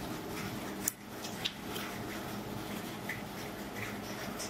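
Soaked seeraga samba rice tipped into a pot of boiling biryani water, the water bubbling and popping steadily with scattered small ticks. Two sharp clicks about a second in and half a second later.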